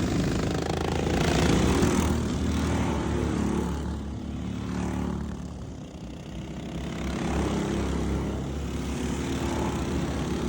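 Racing lawnmower engines running at speed, their pitch shifting as they rev. The sound swells, dips about six seconds in, then builds again.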